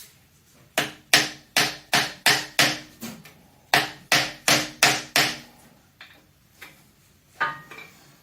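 Hammer blows on the Oldsmobile 303 engine's metal parts: a quick series of six sharp strikes, a short pause, then five more, each with a brief metallic ring. A couple of lighter knocks follow near the end.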